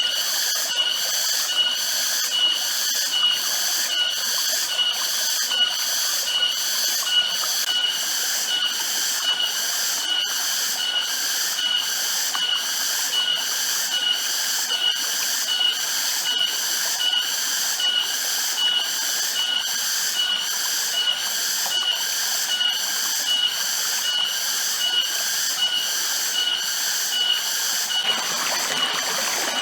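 Cicadas calling in a loud, high-pitched pulsing chorus, about two pulses a second. It stops near the end, leaving a steady rushing like running water.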